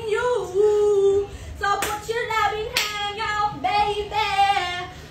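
A woman singing loudly and unaccompanied in long, wavering held notes, with two sharp hand smacks about two and three seconds in.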